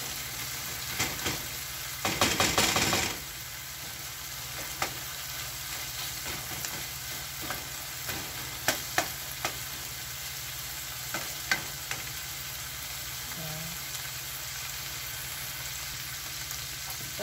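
Diced bacon and onion sizzling steadily in a nonstick wok as they brown, stirred with a plastic spatula: a burst of rapid scraping about two seconds in, then scattered taps of the spatula on the pan.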